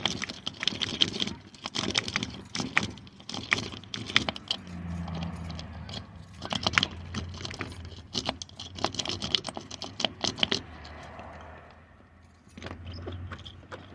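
Small metallic clicks and jingles in irregular runs, from lock picks and keys worked in an old Weiser door knob lock. Between the runs, around the middle and near the end, there is a low steady hum.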